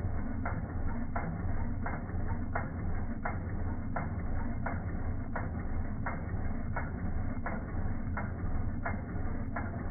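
Industrial walking-foot (triple-feed) sewing machine stitching slowly through thick fabric: a steady low motor hum with a sharp click about three times every two seconds.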